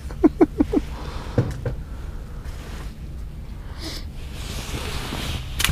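A brief four-beat chuckle, then soft rustling of hands and clothing while a crappie is unhooked by hand, over a low steady hum; a sharp click right at the end.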